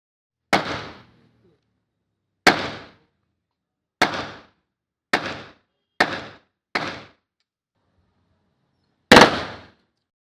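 Seven single gunshots from a .30 bore (7.62×25 mm Tokarev) rifle built in M4 style, each a sharp crack with a short echoing tail. The first six come at uneven intervals of about one to two seconds, and the last follows after a pause of about two seconds.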